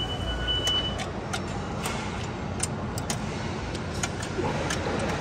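Sharp metallic clicks, irregular and about one or two a second, as a ratcheting wrench turns a nut on a running-board linkage. They sit over a steady background of shop and building-site noise, and a high whine in it stops about a second in.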